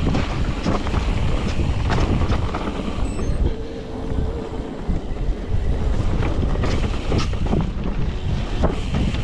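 Wind rushing over the microphone of a moving mountain bike, with a low rumble and scattered knocks and rattles from the bike running over the trail. A short steady whine sounds about four seconds in.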